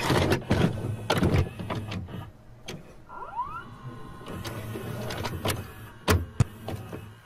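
VCR tape mechanism sound effect: a quick run of clicks and clunks as the cassette loads, a short rising whir about three seconds in, then a few sharp clicks near the end.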